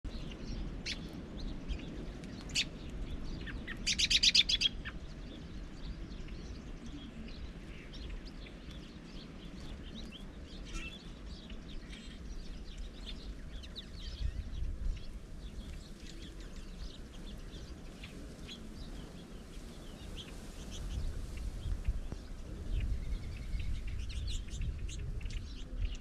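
Small songbirds chirping with short, high calls scattered throughout, and one loud, rapid trill about four seconds in. Low rumbles of wind come and go in the later part.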